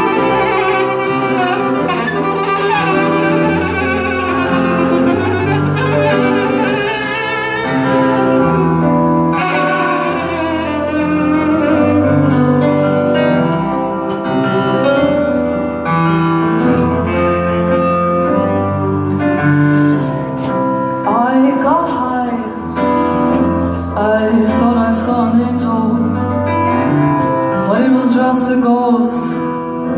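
A band playing an instrumental passage of a slow song, with no singing: long held melodic lines over steady bass notes.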